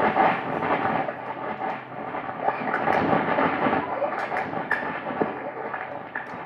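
Experimental noise music played live: a dense rumbling, crackling wash with scattered sharp clicks and no steady pitch.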